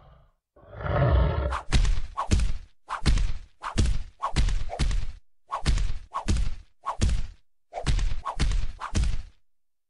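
An angry cat growls, then hisses and spits in a rapid series of about a dozen short, sharp bursts while swatting at a dog's face.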